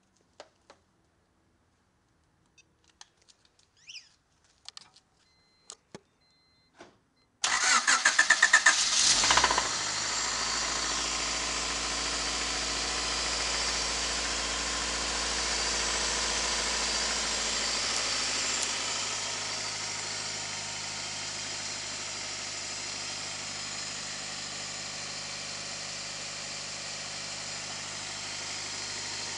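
A few light clicks, then a Honda Civic engine cranks on the starter for about two seconds, catches, and runs at a fast idle that settles lower about ten seconds later. The engine has thrown a rod bearing and has rod knock.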